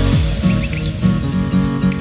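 Background music with steady pitched notes in a regular rhythm, with a few short high chirps about half a second in.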